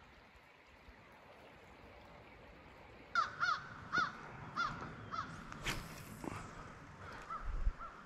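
A bird calling: a quick run of about ten short calls, each rising and falling in pitch, starting about three seconds in and growing fainter toward the end.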